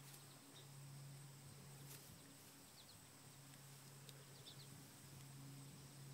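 Near silence: a faint steady low hum that breaks off briefly every couple of seconds, with a few faint high chirps.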